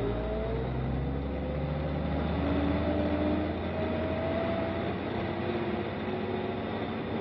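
A WWII jeep's engine running hard under load, its pitch slowly rising as it works through mud. It cuts off suddenly at the end.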